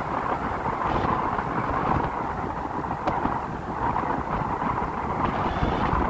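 Moving road vehicle driving on a paved road: steady engine and tyre noise, with wind rumbling on the microphone.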